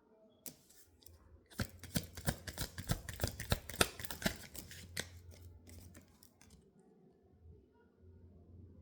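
A deck of tarot cards being shuffled or handled: a rapid run of sharp card snaps and flicks that starts about a second and a half in and stops after about five seconds.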